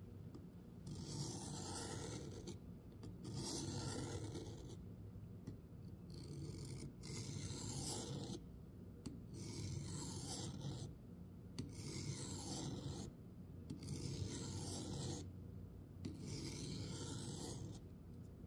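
Knife blade drawn in long, even strokes during final sharpening of its edge: about eight scraping strokes, each lasting over a second, with short pauses between them.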